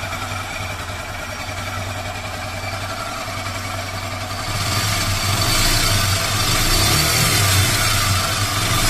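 Hero Super Splendor BS4's single-cylinder four-stroke engine running with a bad mechanical noise. It idles, then is revved up about halfway through. The mechanic later traces the noise to the timing chain.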